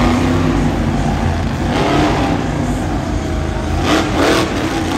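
Monster truck engine running and revving, loud.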